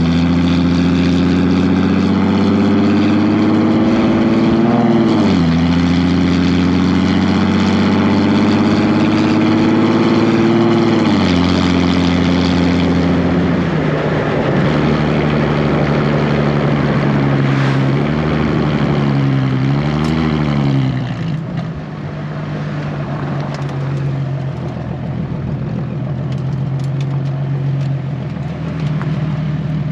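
Nissan 370Z's 3.7-litre V6 exhaust pulling hard through the gears: revs climb and drop sharply at upshifts about five and eleven seconds in. A few quick blips come around twenty seconds in, then the engine settles to lower, quieter, steadier running.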